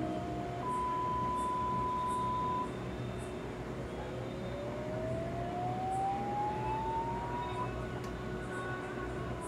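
HTC One M9 phone speaker playing audio test tones. A steady pure beep lasts about two seconds, then a single tone sweeps slowly upward in pitch over about five seconds and stops near the end.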